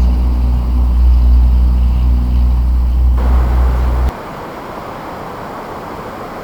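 Steady low hum of an idling vehicle engine, which cuts off abruptly about four seconds in. A steady rushing noise follows.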